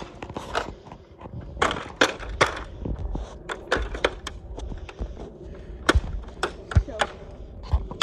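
Plastic toy fire truck playset being stomped and smashed underfoot: a string of irregular sharp cracks and thuds of breaking plastic.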